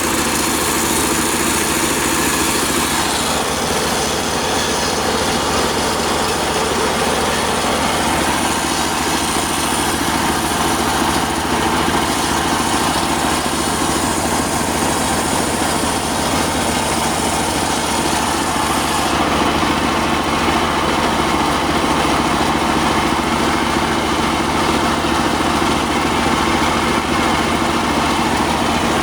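Circular sawmill machine running with a loud, steady drone; its pitch drops slightly about three seconds in.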